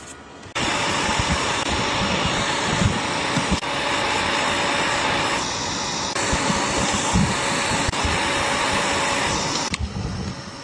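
Small electric air blower running steadily, switching on about half a second in and cutting off near the end, its airflow stepping up and down a few times. Faint knocks can be heard underneath.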